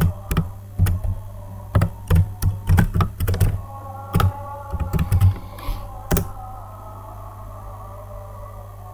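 Computer keyboard being typed on: an irregular run of key clicks for about six seconds as a word is entered, then the typing stops.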